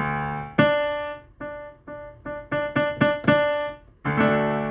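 AODSK S-200 digital piano played: about ten notes and chords struck one after another, some hard and some soft, each dying away, ending on a sustained chord. The changing loudness shows off the touch-sensitive keys.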